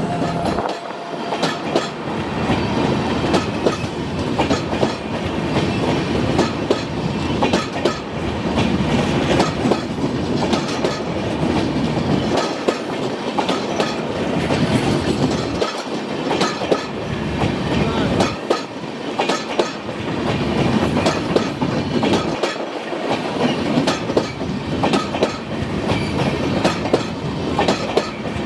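Express train coaches running past at speed, the wheels clattering over the rail joints in a continuous clickety-clack. The low rumble drops out briefly several times.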